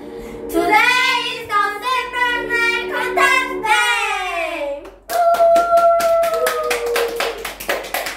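Two girls singing a chant together over backing music, ending in a long falling slide of the voice; then rapid hand clapping while a voice holds a long note.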